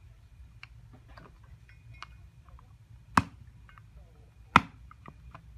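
Two sharp chops of a machete blade cutting through a green plant stem onto a wooden block, about a second and a half apart, with faint small taps between them.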